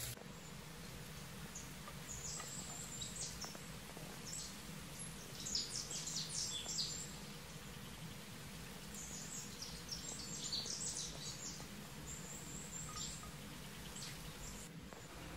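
Bird chirping in several short runs of quick, high notes, over a low steady hum.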